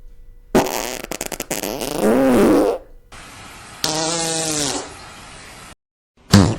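Fart sound effects, one after another: a long sputtering fart starting about half a second in that ends in a wavering, squeaky pitched tail, then a shorter, steadier pitched fart about four seconds in, and a brief sharp one near the end.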